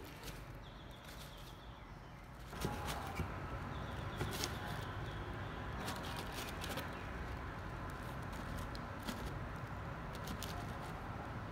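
Soft knocks and rustles as sapodilla fruits are set down one by one into a cardboard box lined with dried leaves, the fruits tapping against each other and the cardboard. A steady background noise comes up about two and a half seconds in.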